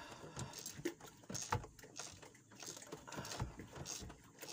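Hand ratchet clicking and knocking in short, uneven strokes as it screws the new oil filter down onto its thread.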